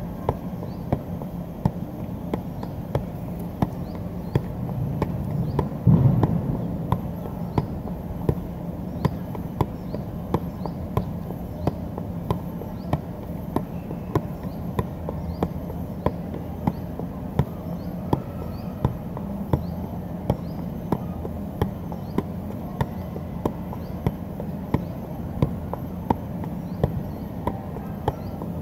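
Soccer ball being juggled on the foot: an even run of kicks, a little under two a second, over a steady low rumble of background noise, with a brief louder low surge about six seconds in.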